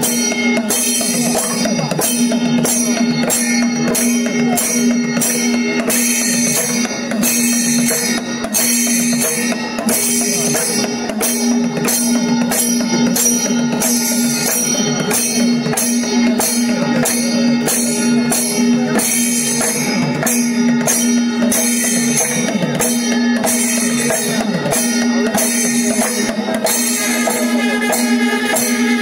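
Kerala temple festival percussion: drums beaten loudly and continuously, with cymbals clashing on a steady beat and a single held tone sounding underneath.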